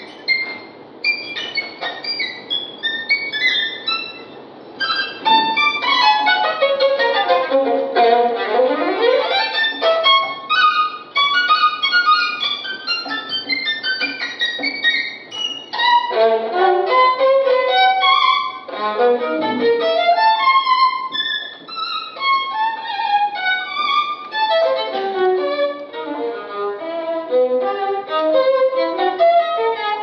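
Solo violin playing quick runs of short notes, with a sweep down to low notes and back up about six to ten seconds in.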